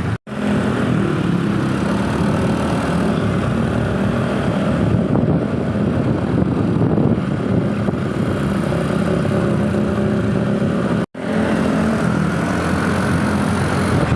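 A road vehicle's engine running steadily, with traffic noise. The sound cuts out completely for an instant twice, just after the start and about eleven seconds in.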